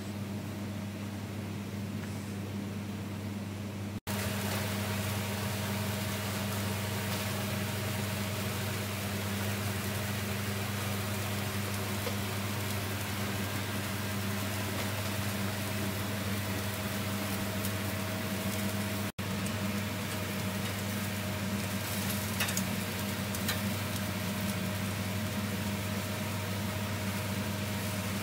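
Enoki mushrooms and vegetable skewers sizzling on a grill grate over glowing heat, with a hiss under a steady machine hum. It grows louder about four seconds in, and a few faint ticks come near the end.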